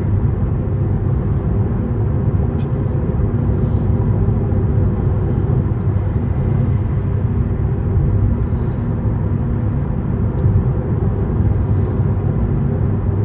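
Steady road and engine rumble inside a Toyota's cabin at highway speed, with faint hissing swells every couple of seconds.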